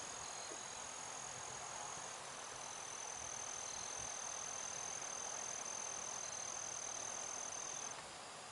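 A steady, high-pitched insect trill over a faint outdoor hiss; the trill drops slightly in pitch about two seconds in and stops near the end.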